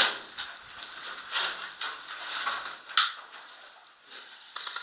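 Airsoft pistol shots: one sharp crack right at the start and another about three seconds in, with faint rustling noise between them.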